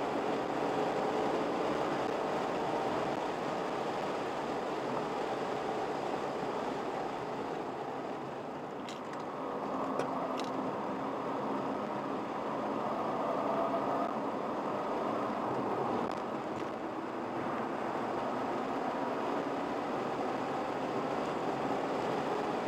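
Car engine and road noise heard from inside the cabin while driving at speed. The sound dips about eight seconds in and builds again over the next few seconds, with a few sharp clicks around nine to ten seconds in.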